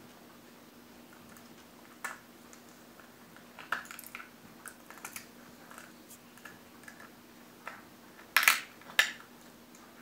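A small dog's teeth cracking and crunching a walnut shell: scattered sharp cracks and clicks, loudest as two cracks close together about eight and a half seconds in.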